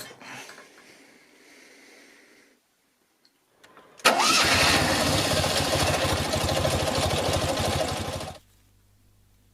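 Fiat 126p's air-cooled two-cylinder engine catching and running loudly with rapid, even firing pulses for about four seconds, then cutting off abruptly.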